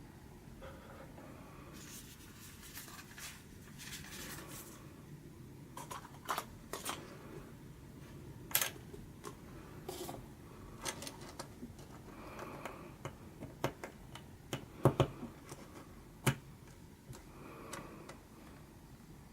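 Plastic LEGO Technic pieces clicking and rattling as they are handled, in a scatter of light clicks with a few sharper ones in the second half.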